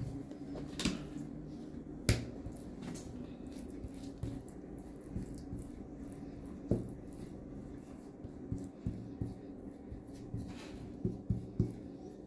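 Scattered light taps and clicks of hands and a utensil working rolled-out dough and lahmacun topping on the worktop, over a steady low hum.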